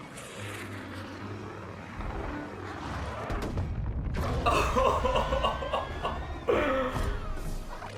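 Film battle sound effects of fighter jets attacking: a deep rumble that builds from about two seconds in, with booms and a louder burst of wavering, roaring sound about halfway through.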